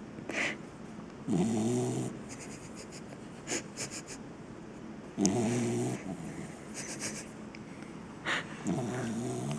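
Young English cocker spaniel snoring in its sleep: three drawn-out snores about three and a half seconds apart, with short, sharp breath sounds between them.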